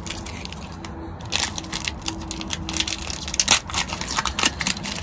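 Plastic wrapper of a Panini NBA Hoops trading-card pack crinkling and tearing as it is peeled open by hand: an irregular run of sharp crackles, loudest about three and a half seconds in.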